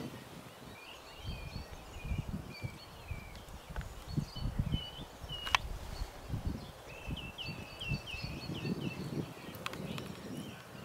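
Small birds chirping in short repeated phrases, quickening into a run of rapid chirps near the end, over low irregular rustling and bumps. A sharp click stands out about halfway through.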